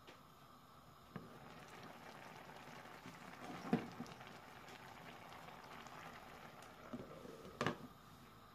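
Curry simmering in a steel pan, bubbling faintly. A glass pan lid knocks and clinks as it is lifted off and set back on, loudest a little under four seconds in and near the end.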